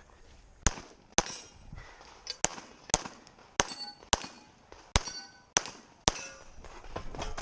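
A pistol firing about nine shots, roughly half a second apart and partly in pairs. Several shots are followed by the ringing clang of hit steel targets.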